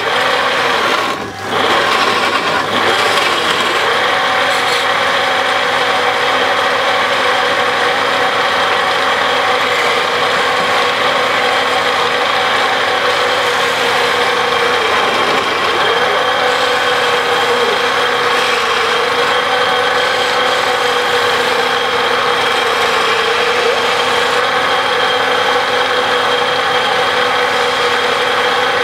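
Wood lathe running steadily with a hand-held turning tool scraping the spinning wooden sofa leg, a steady motor hum under a rasping cutting noise. The hum sags briefly in pitch a few seconds in and again near the middle.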